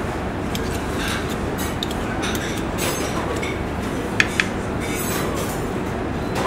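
Steady kitchen background noise, with metal spoons clinking twice in quick succession a little past four seconds in as eggplant purée is shaped into quenelles between two spoons.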